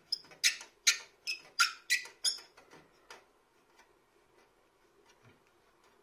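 A combi boiler's filling tap being turned shut by hand gives about seven sharp clicks in quick succession over the first two and a half seconds, then only faint ticks.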